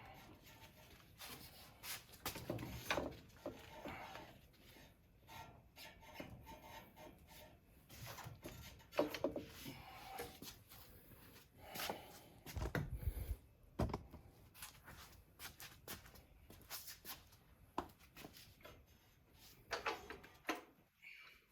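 Scattered clunks, clicks and scraping from hands working metal parts on a motorcycle's rear wheel assembly, with a heavier pair of low thuds about 13 seconds in.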